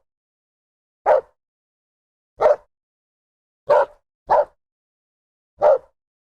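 A dog barking: five short single barks about a second and a half apart, two of them close together in the middle, with dead silence between barks.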